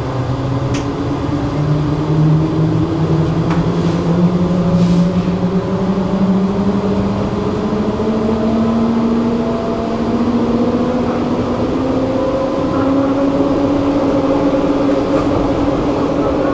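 Electric tram heard from inside the car, accelerating: the whine of its electric drive climbs steadily in pitch over several seconds and levels off near the end, over the steady rumble of the ride.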